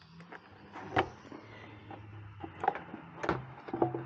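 Plastic air box and intake duct of a 2014 GMC Sierra 1500 being unclipped and lifted off the engine: a few sharp plastic clicks and knocks over a faint low hum.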